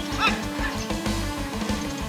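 Background music with a steady beat, and a short wavering high note about a quarter of a second in.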